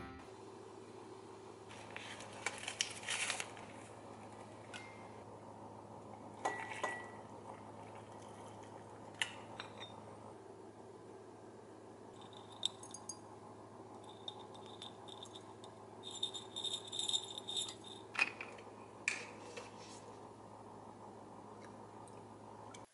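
Faint kitchen clatter: scattered light clinks and rattles of a ceramic cup and things set down on the counter, in small clusters, over a steady low hum.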